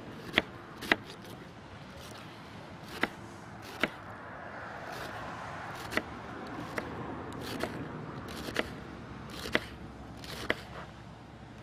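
Knife shredding white cabbage on a plastic cutting board: sharp, separate chopping strokes about once a second, irregularly spaced.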